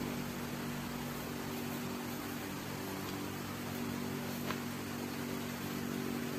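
Steady low hum with an even hiss in a small room, from some running appliance or fan, with a single faint click about four and a half seconds in.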